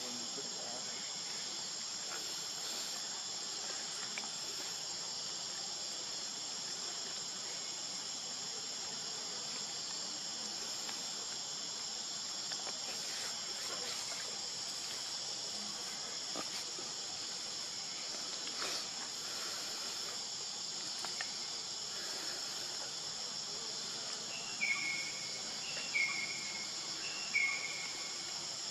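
Steady, even chorus of insects ringing high. Near the end, a run of short, high calls about a second apart.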